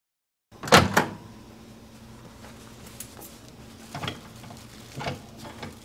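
Microwave oven door opening with a loud click about half a second in, then a few light knocks and clinks as a bowl is taken out of the microwave with a towel.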